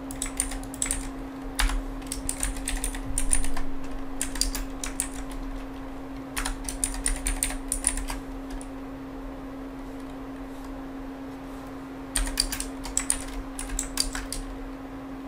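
Computer keyboard being typed on in three bursts of keystrokes, with a pause of a few seconds between the second and third, over a steady low hum.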